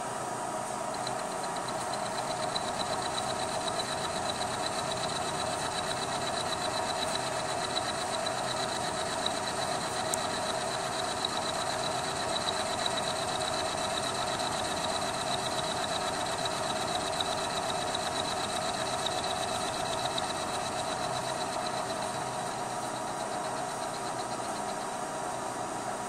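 Vertical milling machine running in low range, its end mill cutting a flat on a hydraulic fitting to form a hex nut: a steady drive drone with a thin high whine from the cut that comes in about a second in and fades near the end. The end mill is worn at its bottom.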